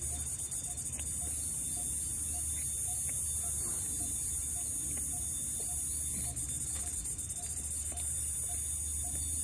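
Steady high-pitched insect chorus over a low hum, with a soft low note repeating about twice a second.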